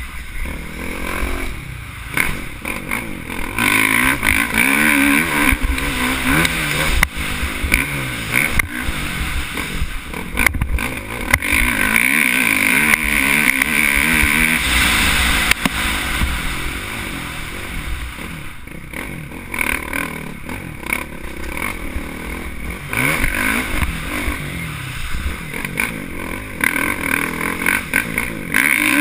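Dirt bike engine being ridden hard, its revs rising and falling again and again as the rider works the throttle through the trail, with louder surges a few times along the way.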